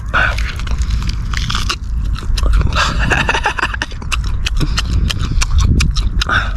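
A person chewing and biting into braised pig's trotter close to the microphone, with many quick wet clicks and smacks and a denser run of chewing about three seconds in.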